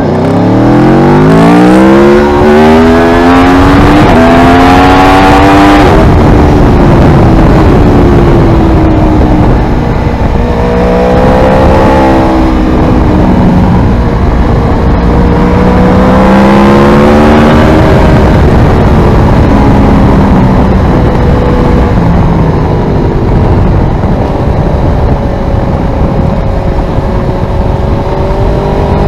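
Aprilia Tuono V4R's V4 engine ridden hard: the pitch climbs steeply for the first six seconds under acceleration, then rises and falls again and again as the throttle opens and closes through bends. A steady rush of wind noise runs underneath.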